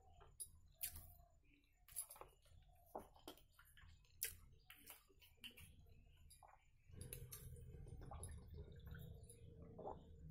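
Faint eating sounds: small wet clicks and squishes from chewing and from fingers working rice on a steel plate, with a low steady hum coming up about seven seconds in.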